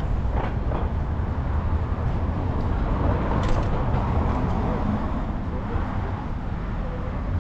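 City street ambience: a steady rumble of traffic with faint voices of passers-by.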